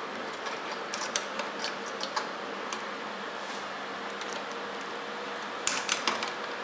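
Light clicks and rattles of banana-plug patch cords and component leads being handled and pushed into the sockets of a digital IC trainer board, with a cluster of sharper clicks near the end. Under them is a steady background hiss.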